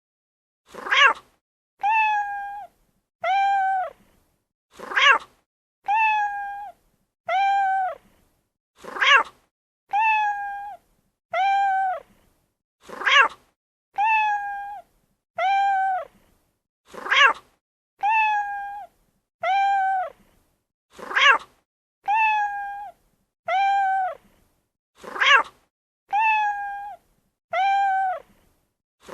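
Domestic cat meowing over and over in an identical repeating cycle: a short sharp meow followed by two longer, steady meows, the cycle coming round about every four seconds.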